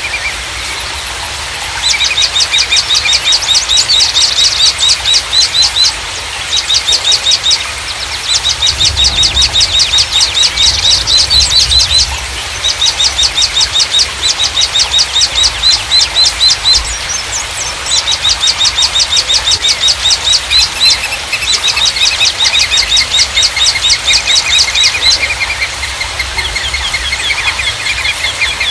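A songbird singing long, rapid trills of evenly repeated high notes, each run lasting a few seconds with brief pauses between. Softer, lower chirping from another bird runs underneath.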